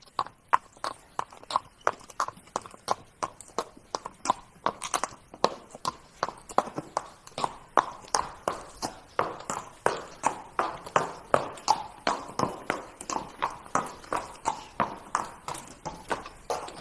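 Horse trotting, its hooves striking in a steady, even clip-clop of about three beats a second.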